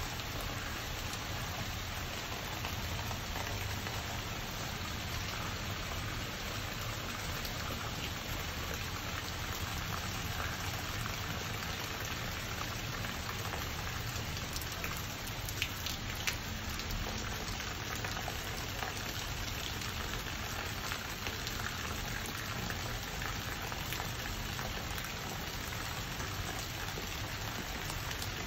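Steady downpour of tropical rain falling on wet brick paving and leaves, an even hiss, with two brief ticks about halfway through.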